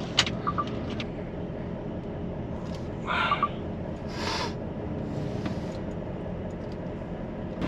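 Articulated lorry's diesel engine running steadily, heard from inside the cab as it starts to move off in the queue. Two short noises come about three and four seconds in.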